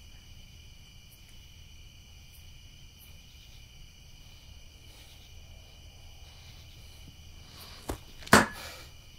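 Faint steady chirring of crickets. Near the end comes a short sharp tap, then about half a second later a loud smack as a wooden cane strikes a hand.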